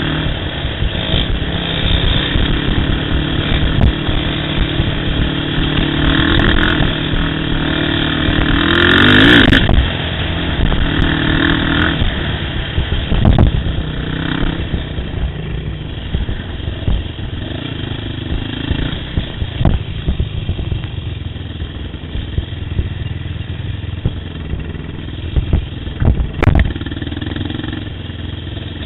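ATV engine running under throttle on a trail, revving up to a climbing pitch about nine seconds in, then dropping back and running more quietly, with scattered knocks and clatter.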